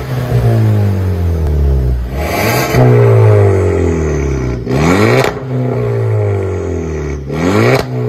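Turbocharged 1.4-litre four-cylinder engine of a VW Scirocco 1.4T, revved three times from idle, each rev rising quickly and then falling back. It runs through an aftermarket valve muffler with quad tips, and the valve is switched by remote from closed to open partway through.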